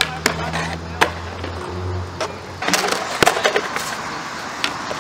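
Skateboard wheels rolling on concrete with a steady rumble, broken by sharp clacks of the board striking the ground. Past the middle comes a burst of clattering with one hard smack as a skater and board hit the concrete in a fall.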